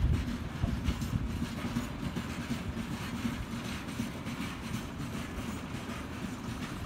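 Freight train of open-top gondola wagons rolling past on the rails, a steady rumble of wheels on track.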